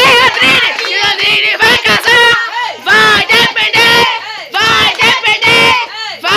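A group of voices, children's among them, singing together loudly in long held phrases.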